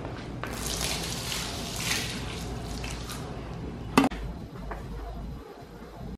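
Water being sprayed over a large carpet rug to soak it before scrubbing: a steady hissing spray for about three seconds, then a single sharp knock about four seconds in.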